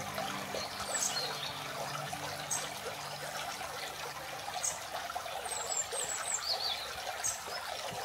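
Small stream trickling steadily over stones.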